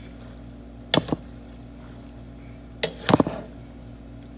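A spoon knocking and scraping against a metal cooking pot while thick chili is stirred: a quick double knock about a second in and a louder cluster of knocks about three seconds in, over a steady low hum.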